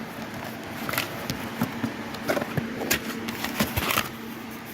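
Small bolts, nuts and packaging being handled: scattered light clicks and rattles over a faint steady hum.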